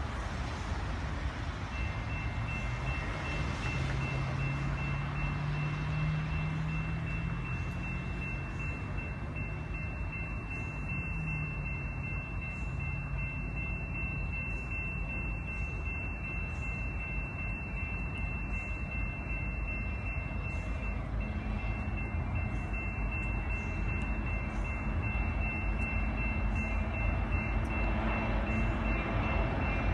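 Grade-crossing warning bell starts ringing about two seconds in and keeps ringing steadily, over the rumble of an approaching BNSF freight train that grows louder near the end.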